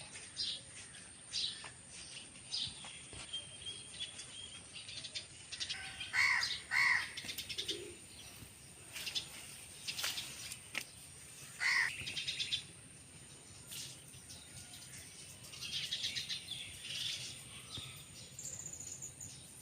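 Wild birds chirping and calling, in short scattered chirps, with a few louder calls about six, seven and twelve seconds in.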